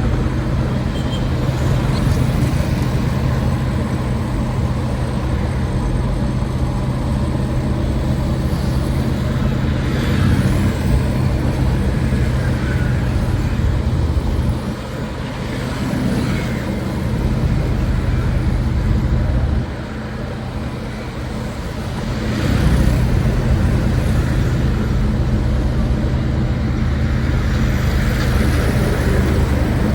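Street traffic noise: motor vehicles running and passing, with a steady low engine hum throughout that drops away briefly twice around the middle.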